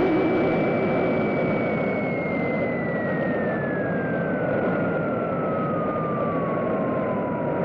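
Cartoon falling-whistle sound effect: one long whistle that holds its pitch for about two seconds, then slides slowly and steadily down, over a steady rushing hiss. This is the classic cartoon sign of something dropping from a great height.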